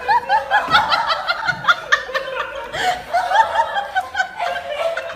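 People laughing: quick high-pitched giggles and snickers following one another without a break.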